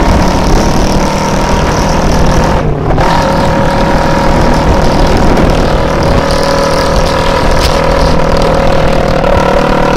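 Honda CD50S's small single-cylinder four-stroke engine running loud through a straight pipe with the silencer taken out. The sound dips briefly about three seconds in, then carries on at a steady pitch.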